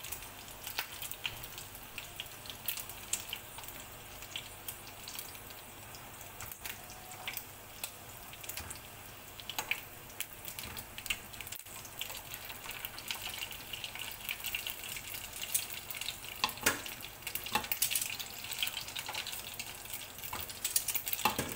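Meatballs frying in hot oil in a non-stick pan, with a steady sizzle and many small crackles, plus a few sharp clicks of a utensil against the pan as the meatballs are lifted out. The crackling gets busier and louder near the end.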